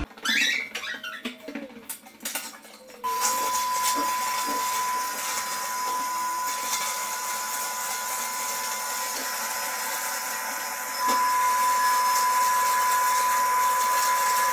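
A vacuum or dust-extractor motor runs steadily with a high whine, starting about three seconds in and getting louder about eleven seconds in.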